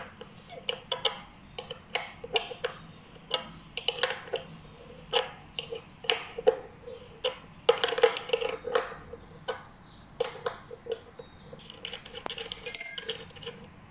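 Irregular small metal clicks and clinks from a skateboard truck's kingpin nut being loosened and spun off by hand, with the washer and bushing being lifted off the kingpin.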